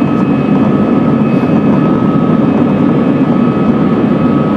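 Airplane taking off: a loud, steady engine drone with a thin, steady whine above it.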